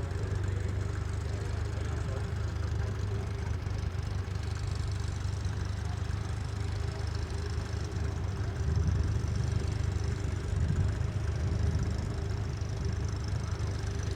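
Tractor engine running steadily with a low hum, a little louder around nine and eleven seconds in.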